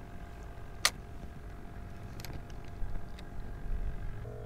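Handling noise from a spinning rod and reel over a low rumble: one sharp click about a second in, then a couple of fainter clicks.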